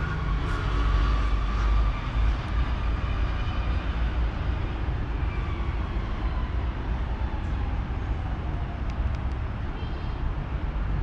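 A vehicle passing, with a steady low rumble and a faint whine that slowly falls in pitch over several seconds.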